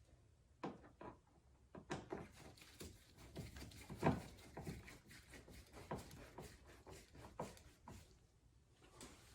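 Faint, scattered clicks and taps of hands fitting a small bump stop into a car's door panel during reassembly, the loudest about four seconds in.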